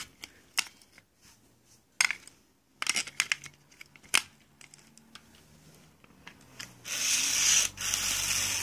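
Clicks and rubbing of hands handling a Furby's plastic battery cover. About seven seconds in, a steady whirring hiss with a low hum starts as the original Furby's internal motor runs and moves its eyes.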